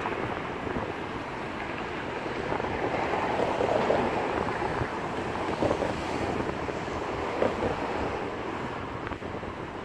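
GO Transit bilevel passenger coaches rolling past on the rails: a steady rumble of wheels on track that swells a few times, mixed with wind on the microphone.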